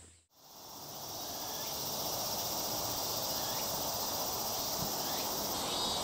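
Outdoor rural ambience with insects chirping in a steady, high, even drone, fading in from silence just after the start.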